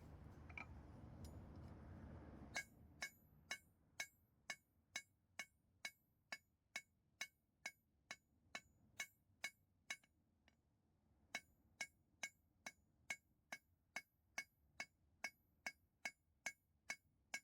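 Blacksmith's hammer striking hot steel on an anvil, drawing out a small bar of spring steel with steady blows about two a second, each with a short metallic ring, and a brief pause partway through. A low rumble is heard for the first couple of seconds, before the hammering starts.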